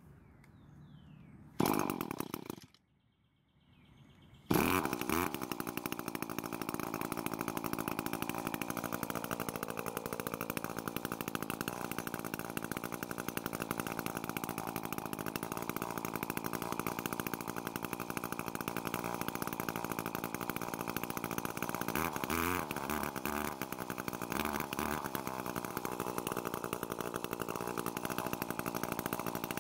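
Echo stick edger's small two-stroke engine, its carburettor's low-speed screw opened for a richer mixture. A short burst of sound comes near two seconds in; the engine catches about four and a half seconds in and runs steadily, warming up without choke. Its note changes unevenly a few times past the twenty-second mark.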